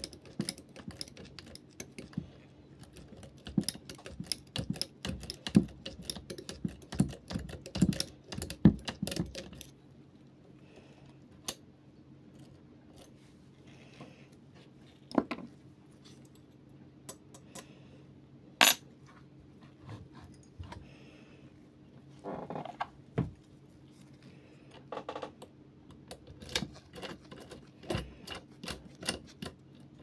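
Metal clicking and rattling of lock-picking tools working in a brass euro-profile cylinder lock: rapid, dense clicks for about the first ten seconds, then scattered clicks and taps with a few short clusters near the end.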